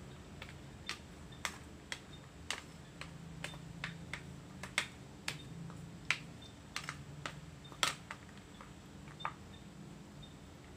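Wooden pestle knocking against a clay mortar as shredded green papaya is pounded and tossed for som tam: a run of sharp, irregular knocks, a couple of them louder, over a low steady hum.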